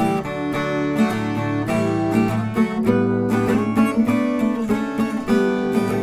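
Instrumental background music with a strummed acoustic guitar playing steady chords.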